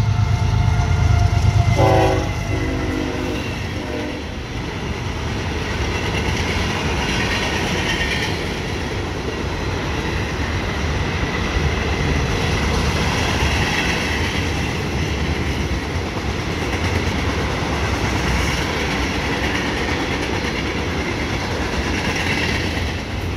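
A CSX manifest freight train passing close by. The diesel locomotives rumble past first, and a horn sounds briefly about two seconds in. Then the freight cars roll by with a steady noise of wheels on rail.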